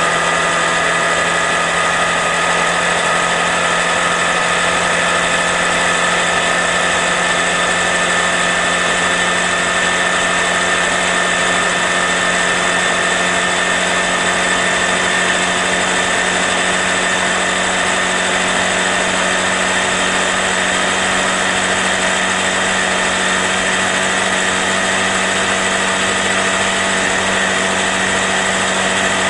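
Honda Grom's small single-cylinder engine running at a steady cruising speed, a constant buzzing whine that holds the same pitch throughout.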